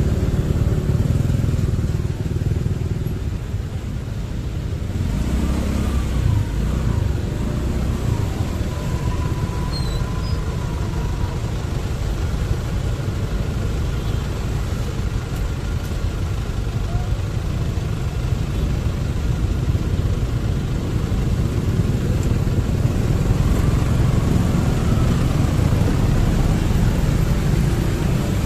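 Motorbike riding through city traffic: its engine and road noise make a steady low rumble.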